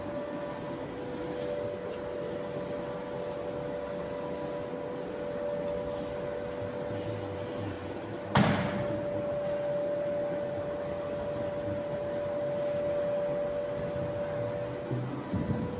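A steady machine hum, with one sharp knock about halfway through and a few lighter knocks near the end.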